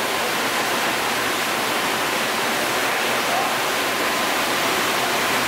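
Steady, even rushing noise with no distinct events, like air blowing.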